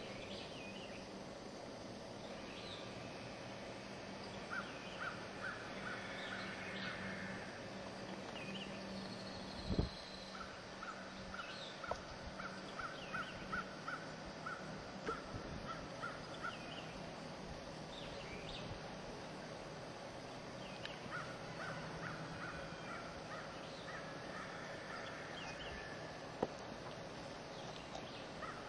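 Birds calling: scattered short high chirps and several runs of rapid, harsh repeated notes a few seconds long, over a low steady hum. A single thump about ten seconds in.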